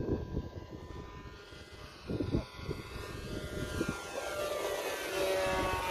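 Electric brushless motor and propeller of an RC P-51 Mustang warbird in flight, a steady whine that grows louder from about halfway through as the plane makes a low pass.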